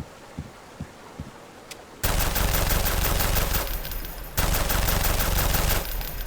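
Regular low thumps, about two a second, then two long bursts of rapid automatic gunfire: the first starts suddenly about two seconds in, the second follows a brief break, and it dies away near the end.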